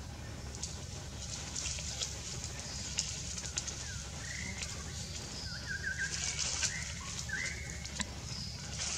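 Outdoor ambience: a steady low rumble with scattered rustles and clicks, and a few short, rising chirping calls about halfway through.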